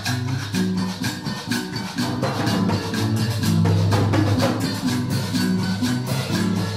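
Background music with percussion keeping a fast, even pulse over a moving bass line.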